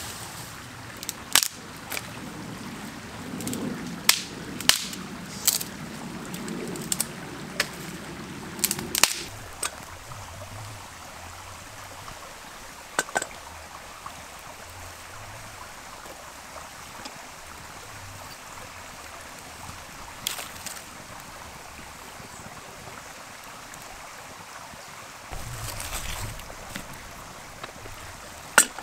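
Sharp cracks and knocks, about a dozen in quick succession over the first nine seconds with rustling among them, then only a few scattered ones, over a steady rushing hiss.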